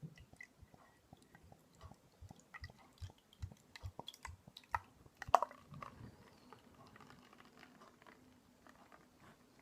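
Glass beer bottle and glass being handled: a run of small clicks and taps, then one louder sharp clink a little past halfway, followed by softer faint handling sounds.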